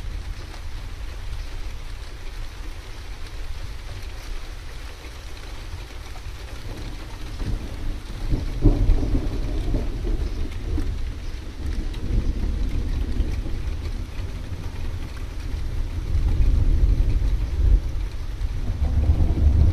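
Thunderstorm: steady rain hiss under low, rolling rumbles of thunder that swell about eight seconds in and again near the end.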